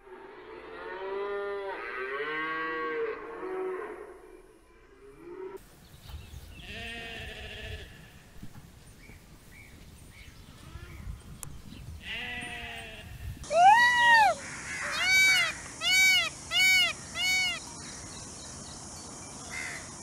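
Cattle mooing, several overlapping calls in the first few seconds, followed by sheep bleating a few times. Then a peacock gives five loud, high calls, the loudest sounds here.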